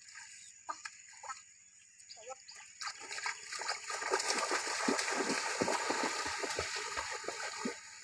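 Feet splashing fast through a shallow stream as two people run through ankle-deep water: a quick run of splashes that starts about three seconds in and stops just before the end.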